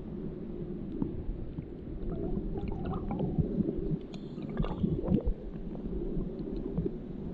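River water heard underwater through a submerged GoPro: a low, muffled rumble of the current with scattered small clicks and ticks.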